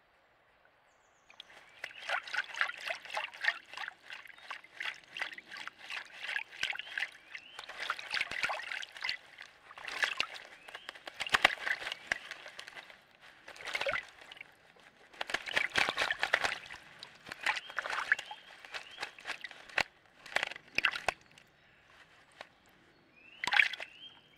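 Young northern goshawk bathing in a shallow pool, splashing and flapping its wings in the water. The splashing starts about a second in and comes in bouts of rapid splashes with short pauses between them, ending with one brief splash near the end.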